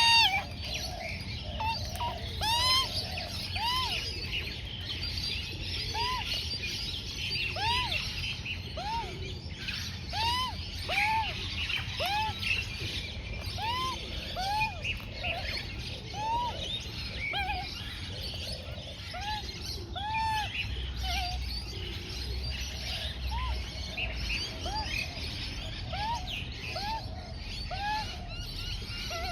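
Juvenile Australian magpie making repeated short begging calls while being fed, each call a quick rise-and-fall, coming about every second or two, with fainter higher chirps among them.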